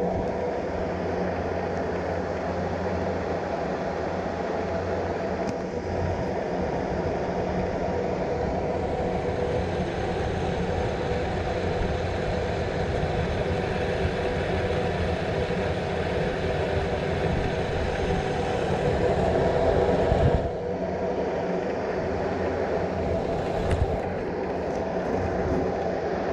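Aerial cable-car gondola in motion, heard from inside the cabin: a steady rumble and hum of the running ride. It swells slightly in the middle and drops back suddenly about twenty seconds in.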